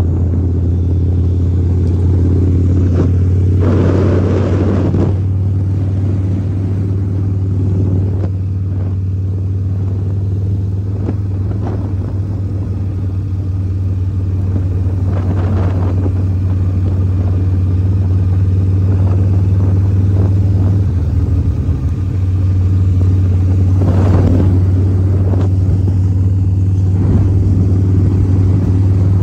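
Harley-Davidson V-Rod's 1250cc V-twin engine running at a steady cruising note, with a brief dip in the note about three-quarters of the way through and a few short bursts of rushing noise.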